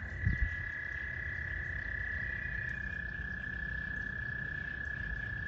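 Frogs calling: one long, steady, high-pitched trill held throughout, with a second, slightly higher trill overlapping it until about halfway. There are a couple of low thumps near the start.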